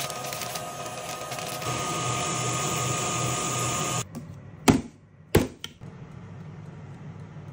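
A kitchen stand mixer running steadily with a low hum and a motor whine while it beats batter. It cuts off about four seconds in, and two sharp knocks follow.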